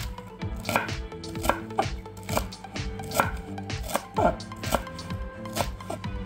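Kitchen knife chopping fresh coriander on a wooden cutting board: a steady run of separate knife strikes on the board, about one or two a second.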